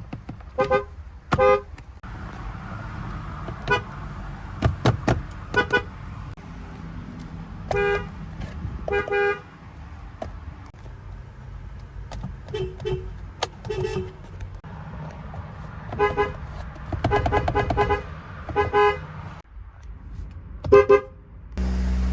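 Car horns honking in a series of short beeps, some single and some in quick runs of taps, over a low engine rumble. Just before the end a louder steady rumble starts.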